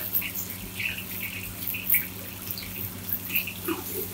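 Shallots and curry leaves frying in a wok, with a spatula scraping and knocking against the wok at irregular moments as they are stirred; a steady low hum underneath.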